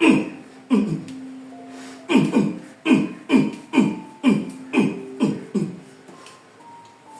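About a dozen hollow thumps in uneven groups, each dropping quickly in pitch. Background music with held notes sounds underneath.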